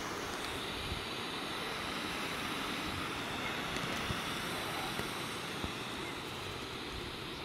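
Air rushing steadily out through the open plastic valve of a large inflatable vinyl whale as it deflates, an even hiss that does not change.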